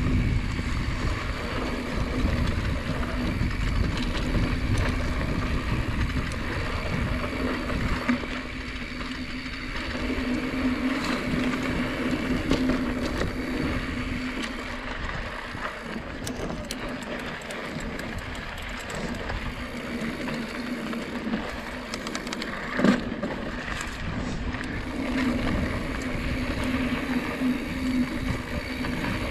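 Polygon mountain bike riding a dirt trail: tyres rolling over the ground and the bike rattling over bumps, with a sharp knock about three-quarters of the way through.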